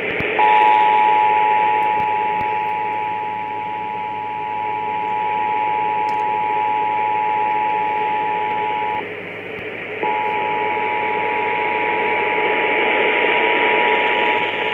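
Emergency Alert System attention signal: the steady two-tone alert (853 and 960 Hz sounded together) of a required monthly test, broadcast over radio. It drops out for about a second midway, then resumes, over constant radio static.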